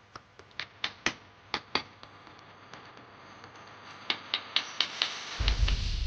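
About a dozen sharp taps or knocks at an irregular pace, in two clusters. A low rumbling noise starts about five seconds in.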